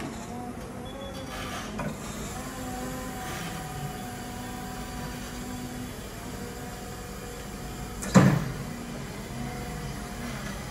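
Electric reach truck running, a steady hum with faint whining tones from its motor and hydraulics while the raised pallet is lowered on the mast. A single loud clunk comes about eight seconds in.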